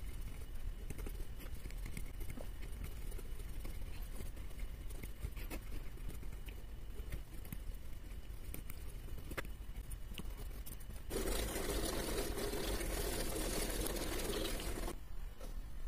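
Pentel Orenz AT mechanical pencil writing on paper: a soft scratching of the lead with small ticks. About eleven seconds in it turns to a louder, dense scratching for about four seconds as the pencil scribbles rapidly in circles.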